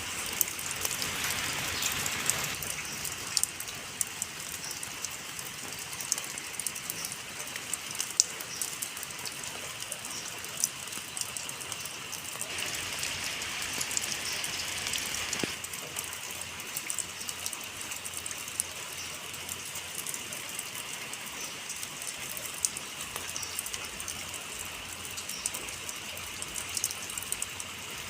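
Rain falling steadily, with many small drop ticks over a constant hiss; the hiss brightens at the start and again for a few seconds around the middle.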